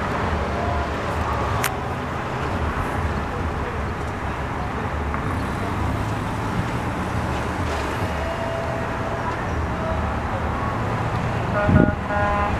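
Steady low rumble of truck and car engines as flatbed tow trucks roll through the intersection one after another. A sharp click comes about two seconds in, and near the end a short bump is followed by a brief pitched sound.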